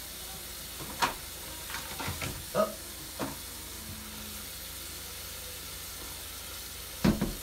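A bathroom medicine cabinet being opened and rummaged through: scattered clicks and knocks from the cabinet door and the toiletries being handled, with the loudest knocks near the end, over a steady hiss.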